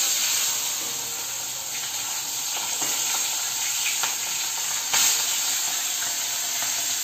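Fish pieces frying in well-heated mustard oil in a steel wok, a steady sizzle. A metal spatula scrapes and knocks against the wok a few times as the pieces are turned over, loudest about five seconds in.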